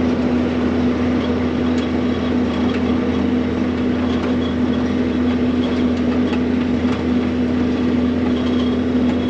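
John Deere self-propelled swather running steadily while swathing sunflowers: a constant engine drone with an even hum and no change in speed.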